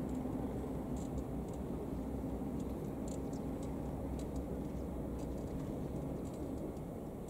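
Steady low rumble of distant city traffic, with a few faint, sharp ticks scattered through it.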